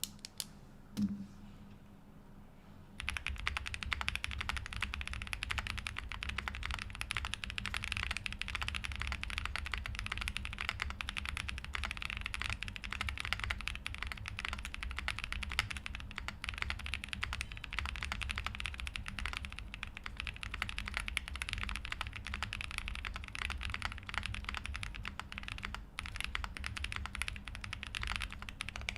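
Fast, continuous typing on a custom mechanical keyboard with lubed Boba U4T tactile switches, GMK keycaps on an FR4 plate and PE foam, starting about three seconds in after a couple of single clicks. A deeper sound, not obnoxiously loud.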